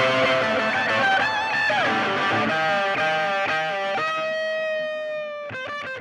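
Background music led by an electric guitar: a lead line with bent, wavering notes, settling on a long held note near the end as the level eases down.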